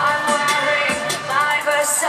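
Pop music: a voice singing over a drum beat.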